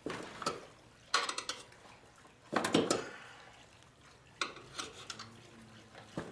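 Metal tire irons clanking and scraping against a motorcycle wheel rim as the tire bead is levered on, in a string of short strokes with the loudest cluster about two and a half seconds in.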